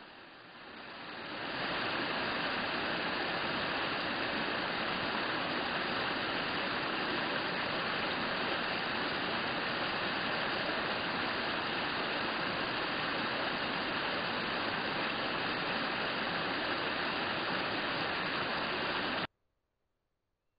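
Steady rush of a shallow stream running over stones, rising over the first second or two and then cutting off abruptly near the end.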